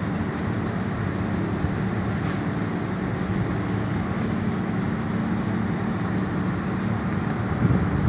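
Steady low machine hum with a steady haze of wind or air noise over it and a few faint ticks.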